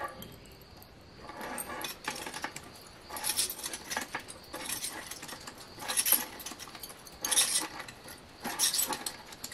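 Short slit steel pipe pieces and water pump pliers clinking and scraping as the pieces are squeezed shut around a steel round-bar ring, in irregular bursts every second or so.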